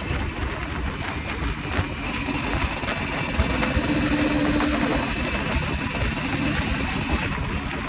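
Hengjian 250 two-stroke dirt bike engine running at a steady, easy riding pace, mixed with wind rushing over the microphone.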